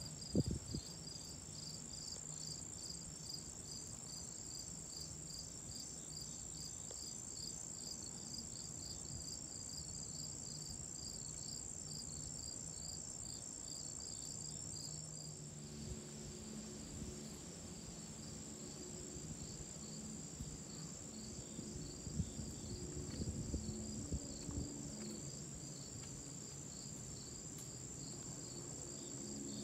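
Chorus of crickets and other singing insects, a steady high-pitched trill with rapid even pulsing, over a faint low hum.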